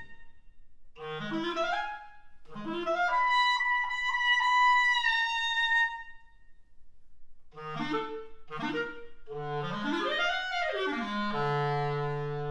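Clarinet playing a solo passage: quick upward runs, then a long held high note, a short pause, two short low notes and a swooping glide up and back down, ending on a held low note.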